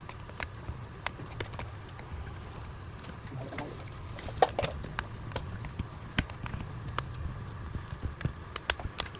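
Irregular sharp clicks and taps of small tools working on the cracked back glass of an iPhone 11 Pro Max, over a steady low hum, with a brief pitched sound around the middle.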